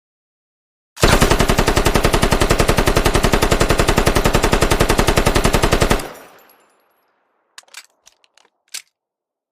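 QJY-88 5.8 mm general-purpose machine gun firing one sustained automatic burst of about five seconds, about a dozen shots a second, starting about a second in and ending with a fading echo. A few light clicks follow near the end.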